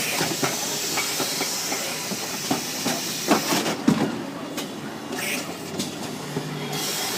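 Carton erecting and folding machine running: a steady hiss with scattered mechanical clacks and knocks. The hiss drops away from about three and a half seconds in until near the end.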